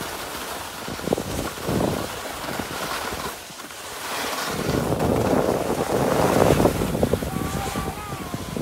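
Wind rushing over the microphone and skis sliding and scraping over packed snow, growing louder about halfway through as the skier gathers speed. A short high wavering tone comes near the end.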